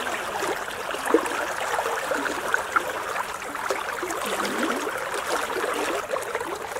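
River water rippling and lapping right at the microphone: a steady watery trickling full of small splashes.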